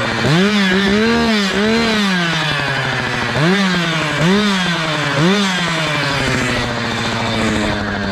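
Two-stroke chainsaw engine revved in a string of quick blips, then held at a steady speed for the last few seconds.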